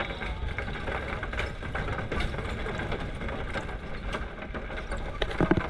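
A vehicle's engine running with steady road rumble, heard while riding along. A brief louder sound comes near the end.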